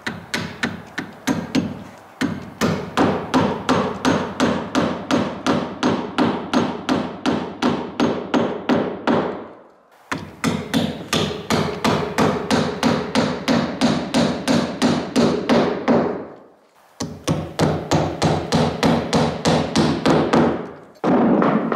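A hammer driving nails to fasten a sliding glass door's frame into its opening: quick, even strikes about three a second, in three runs with short pauses.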